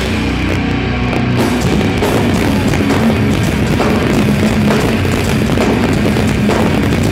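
Live heavy metal band playing loud: distorted electric guitars, bass and drums in a steady, dense wall of sound.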